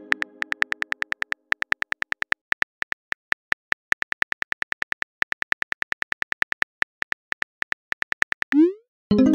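Phone keyboard key clicks, about six a second, as a message is typed. Near the end a short rising swoosh and a chime sound as the message is sent, and the fading tail of a similar chime is heard at the start.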